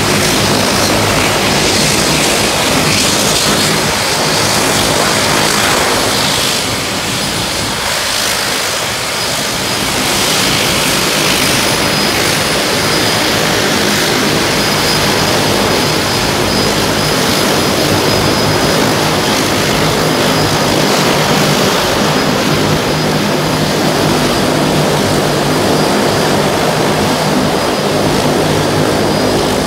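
Turboprop airliner engines running steadily on the ground: a loud propeller drone made of several steady hum tones, with a thin high whine above it.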